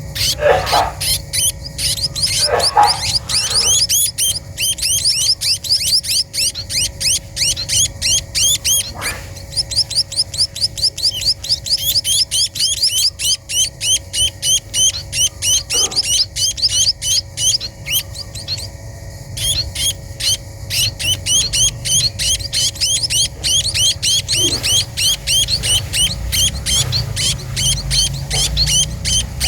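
Small birds chirping rapidly and without a break, many short high-pitched chirps a second, from the 'pipit teki' birds at their low nest.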